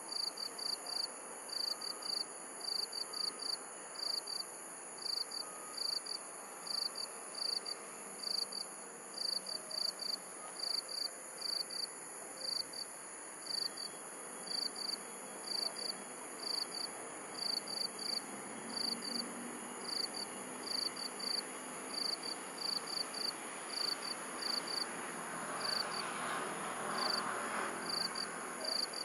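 Crickets chirping in an even rhythm of short high chirps, about two a second, over a steady high hiss. A soft rushing noise swells briefly near the end.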